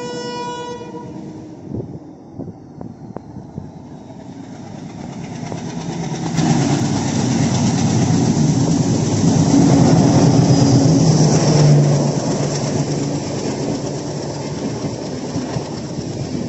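A train horn ending about a second in, then a train approaching and running past close by, its wheels clattering on the rails; the noise is loudest through the middle and eases off toward the end.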